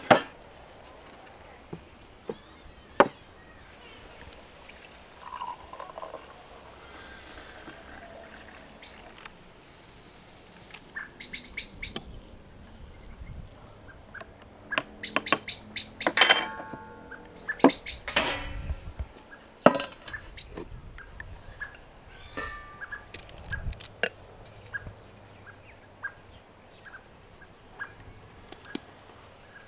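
Two sharp knocks near the start as a wooden board is set down on a wooden table, then a metal spoon clinking repeatedly against a small glass while stirring, with birds chirping in the background.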